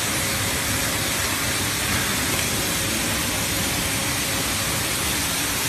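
Automatic bottle labeling machine and conveyor running: a steady, even mechanical hiss and rumble with no distinct strokes.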